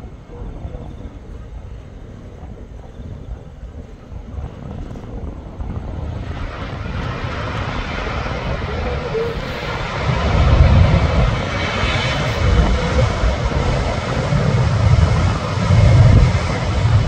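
Airbus A319 twin jet engines during the landing roll: faint at touchdown, then a rushing jet noise that builds from about six seconds in and is loudest from about ten seconds on, with deep rumbling swells as the airliner rolls past.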